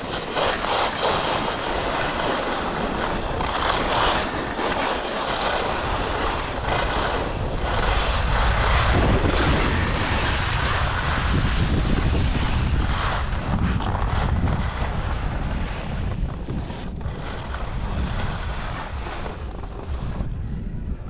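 Skis side-slipping down a hard-packed race course, their edges scraping across the snow in a shifting hiss, with wind buffeting the microphone.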